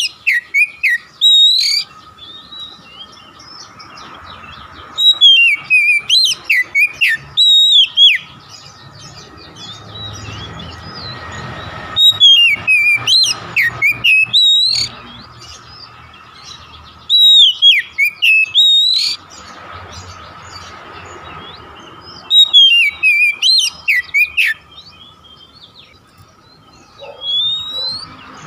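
Oriental magpie-robin (kacer) singing in about six loud bursts of rapid whistled phrases that slide up and down, roughly every five seconds. A faint steady tone runs between the bursts.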